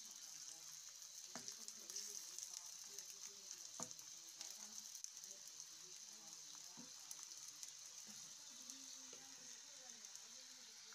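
Chopped onions and green chillies frying in oil in a steel wok, a quiet steady sizzle. A few sharp scrapes or knocks of a wooden spatula against the pan as they are stirred.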